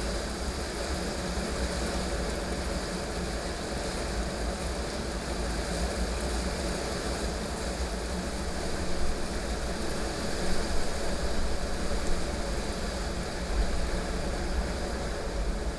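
Heavy rain falling steadily over a deep, continuous low rumble of thunder, with a few louder short spikes in the second half.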